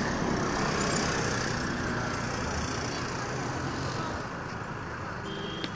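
Steady outdoor background noise, a rumble and hiss of the kind distant road traffic makes, easing slightly in the second half, with one sharp knock near the end.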